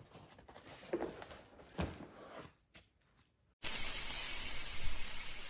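A few soft knocks and handling sounds, a short near-silent gap, then about three and a half seconds in a sudden loud hissing rush from a logo-intro sound effect, fading slowly.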